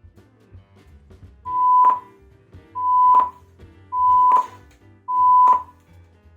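Four short beeps of a steady single-pitch test tone, about a second apart, each cut off with a slight click, over faint background music. They serve as the reference tone for matching the two speakers' loudness.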